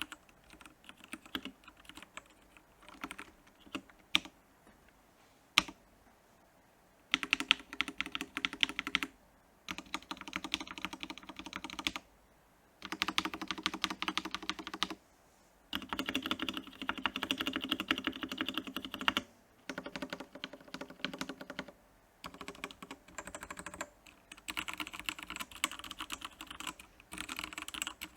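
Typing on a Royal Kludge R87 mechanical keyboard. A few scattered single keystrokes come first, then bursts of fast continuous typing a few seconds long with short pauses between them.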